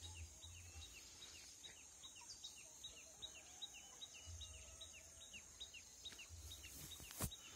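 Faint ambience of a small bird chirping over and over, about four short falling chirps a second, over a steady high hiss.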